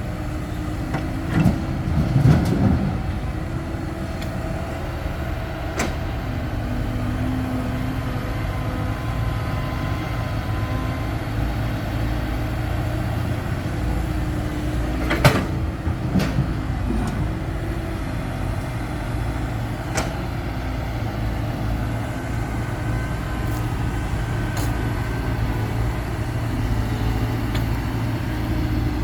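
A heavy diesel engine runs steadily at a constant speed. A few sharp knocks and clanks break through it, the loudest about fifteen seconds in.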